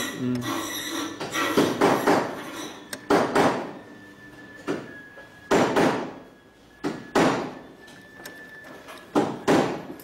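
A key blank being seated and clamped in the jaw of an Xhorse Condor key cutting machine: a string of sharp knocks and clatters, often in pairs. A faint steady whine sits underneath from about four seconds in.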